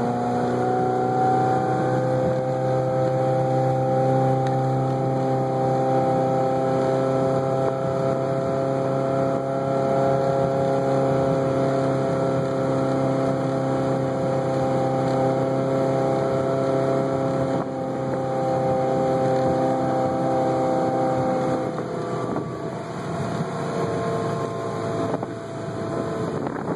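A 260 hp V8 boat engine running at speed under way, its pitch climbing slightly at first and then holding steady. About 22 seconds in the engine note fades back under a rushing wash of wind and water.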